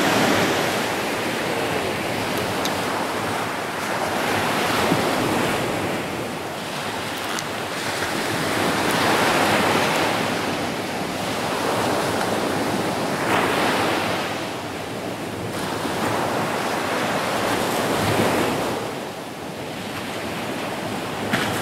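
Surf breaking on a sandy shore, the wash swelling and fading about every four to five seconds.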